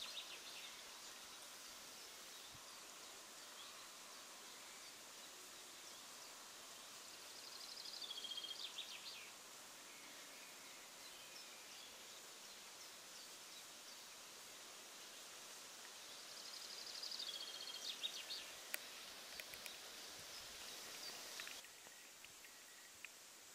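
A songbird singing the same short phrase three times, about nine seconds apart: a falling whistle followed by a quick run of notes. It is faint, over a steady outdoor hiss.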